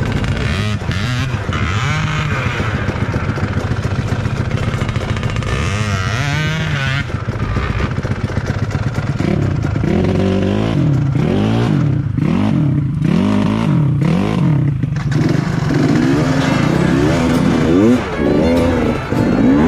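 Motorcycle engine running under load, its pitch rising and falling as it is revved up and down repeatedly, the swings coming about once a second from about halfway through.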